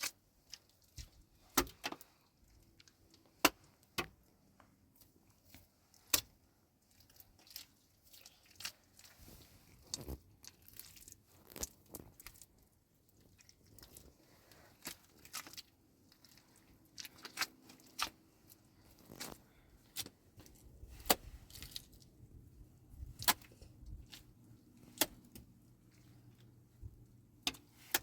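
Scattered sharp clicks and light knocks at irregular intervals, with soft rustling between them.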